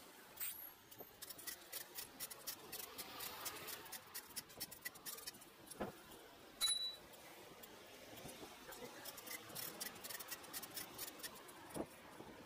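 Faint irregular clicking and rattling from a road bicycle in motion, with a brief high-pitched ping about two-thirds of the way through.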